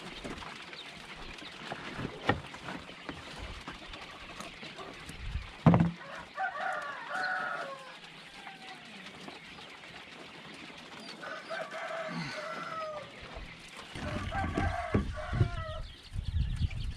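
A rooster crowing three times, each crow a drawn-out call of about two seconds, a few seconds apart. Scattered knocks come between them, the loudest a sharp knock about six seconds in.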